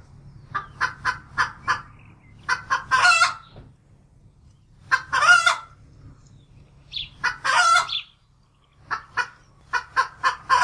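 Hen cackling: runs of quick short clucks, each ending in a longer drawn-out squawk, repeated about four times.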